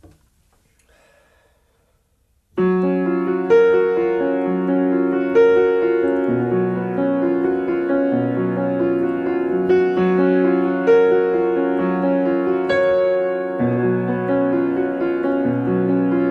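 Solo piano played on a keyboard: slow, sustained chords over a low bass line, changing every second or two. The playing starts about two and a half seconds in, after near silence.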